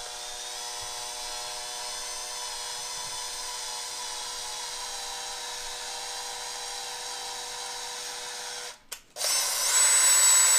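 Cordless drill driving a tap into the end of an aluminium extrusion, a steady motor whine as it cuts threads in the bar. About nine seconds in it stops briefly, then runs again louder and higher-pitched.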